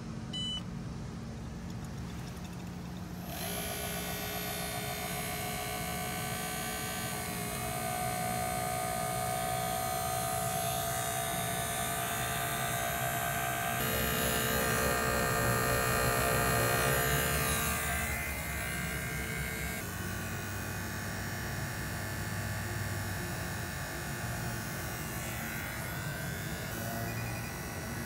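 NAVAC NP2DLM 2 CFM cordless 18-volt vacuum pump running while evacuating an air-conditioning system. Its steady hum and whine jump to a new pitch every few seconds.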